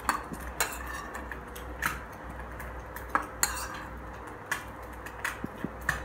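Metal spoon scraping and clinking against bowls while scooping minced pork onto noodles. The clinks come separately, roughly a second apart.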